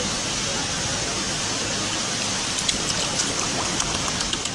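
Water sloshing and splashing in a plastic basin as a hand grips a pufferfish in it, over a steady hiss. Small splashes and drips come in from about halfway.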